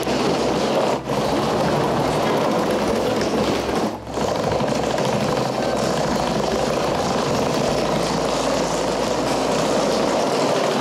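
Steady, loud running noise of a train in a railway station, with two brief dips about one and four seconds in.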